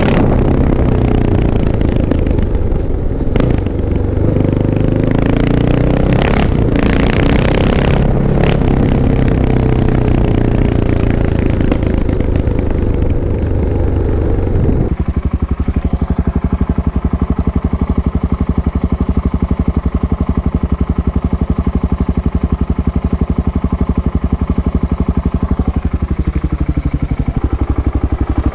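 Kawasaki KLX650's single-cylinder four-stroke engine running at raised revs with the pitch rising and falling, then dropping abruptly about halfway through to a steady, evenly pulsing idle, with a brief blip near the end.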